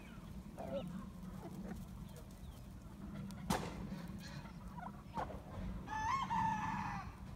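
Free-ranging chickens and roosters calling and clucking in short, faint notes. A single sharp knock comes about three and a half seconds in, and a louder drawn-out call about a second long comes near the end.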